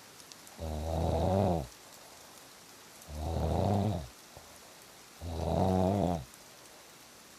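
A sleeping person snoring: three rough, low-pitched snores about two seconds apart, each lasting about a second, over a steady faint patter like rain.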